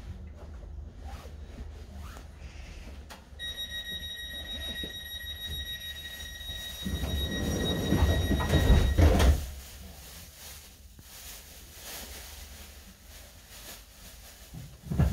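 Train's door-closing sequence: a high warning tone sounds for about five seconds, while the sliding passenger doors run shut and close with a loud thud about nine seconds in.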